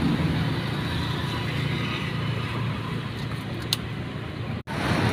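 Steady street traffic noise with a low engine hum, the tyre hiss of a wet road under it. A single short click comes near the end, followed by a brief gap of silence.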